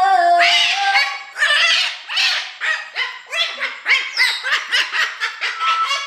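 Umbrella cockatoo giving a rapid string of short, harsh squawks, about two a second, while it dances with its wings spread in an excited display.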